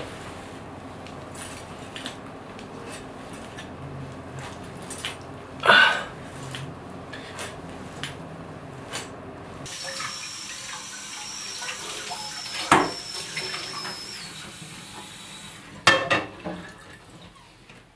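Tap water running into a kitchen sink for about six seconds, with a thin steady high whine over the rush of water, and dishes clattering near the end. Before the water, low room sound with a few soft knocks and one louder thump.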